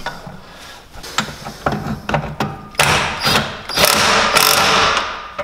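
Hand ratchet clicking as bolts on the front carrier are worked. It starts as scattered clicks, then turns into a loud, rapid run of clicking about three seconds in that fades away near the end.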